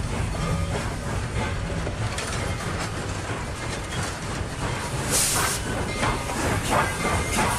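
Steam locomotive running, with a steady low rumble and repeated chuffs, and a short burst of hissing steam about five seconds in.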